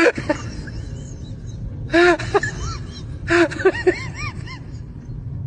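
A dog whimpering in short cries that rise and fall in pitch, in clusters about two seconds and three and a half seconds in.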